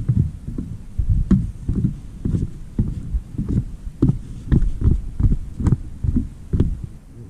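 Footsteps thudding down wooden stairs, about three steps a second, heard close through a body-worn camera; the steps die away near the end.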